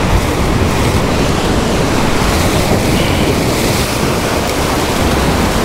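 Rough sea surf breaking and washing against the rocks of a stone jetty, with wind buffeting the microphone, in a steady rush.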